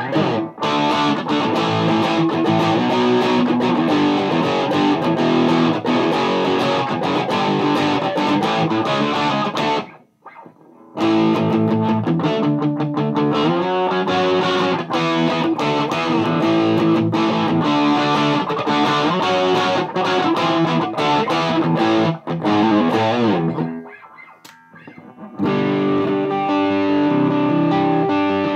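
Electric guitar played through a Mesa Boogie Dual Rectifier tube amp into a Marshall 1960A cabinet, heavily distorted high-gain riffing. The playing breaks off briefly about ten seconds in and again near the end before resuming.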